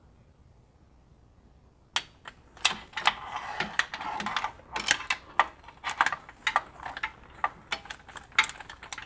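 Hand socket ratchet clicking in quick, irregular runs, starting about two seconds in, as oil pan bolts are tightened.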